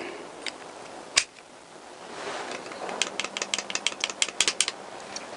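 Small metal parts being handled and fitted together by hand: one sharp click about a second in, then a quick run of small clicks, about nine a second, near the middle.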